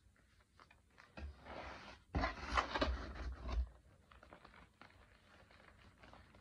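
Hands crushing and squeezing fresh chalk blocks into powder: soft crumbling and crunching, loudest for a stretch of about a second and a half starting about two seconds in, with faint crackles before and after.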